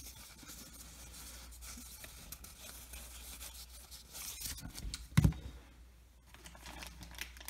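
Cardboard trading cards sliding and rubbing against each other as a small stack is fanned and sorted in the hands, with one sharp knock a little after five seconds in.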